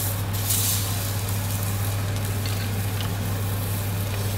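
Beef hamburger patty sizzling in a hot nonstick frying pan just after being turned over, with bacon frying in a second pan; the sizzle is briefly louder about half a second in, over a steady low hum.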